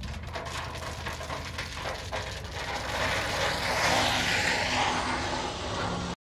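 Motor grader's diesel engine running with a steady low rumble, with a louder rushing noise building from about three seconds in.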